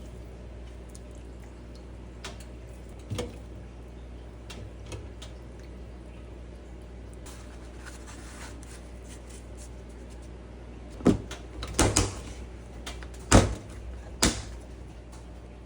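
Hard objects being handled and set down: a few light clicks early on, then a quick run of sharp knocks and clatters near the end, over a steady low rumble.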